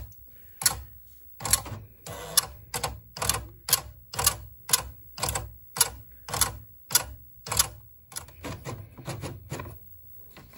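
Commodore 1526 (MPS-802) eight-pin dot-matrix printer printing a graphic: sharp mechanical strokes repeating about two a second. Near the end the strokes come faster and quieter.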